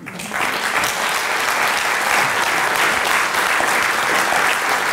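Audience applause: many people clapping, building up within the first second and then holding steady.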